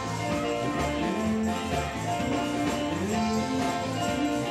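Live gospel band playing an instrumental passage with a tambourine jingling along, with no singing.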